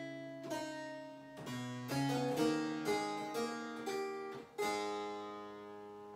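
Early keyboard instrument playing a short cadence in several voices, a cadenza doppia: chords about every half second, then a final chord about four and a half seconds in that is held and fades away.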